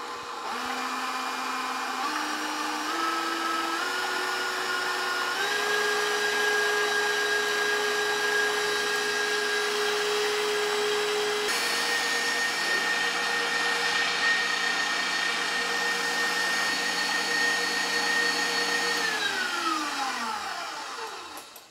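KitchenAid tilt-head stand mixer running, its wire whisk beating egg whites in a steel bowl toward soft peaks. The motor whine steps up in pitch several times over the first six seconds as the speed is raised, then runs steady. Near the end it winds down with a falling pitch and stops.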